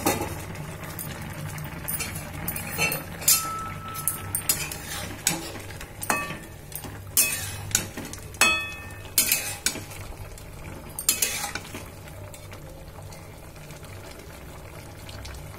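Metal spatula clinking and scraping against a steel kadai while stirring raw mango pieces boiling in water: a string of sharp knocks, some ringing briefly, over steady low bubbling. The knocks stop about three-quarters of the way through, leaving only the boiling.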